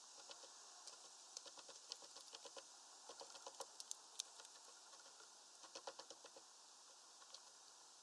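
Quick, irregular clicks and taps of seed being pecked at and cracked on a bird feeder tray, coming in three short flurries with the sharpest tap a little past the middle.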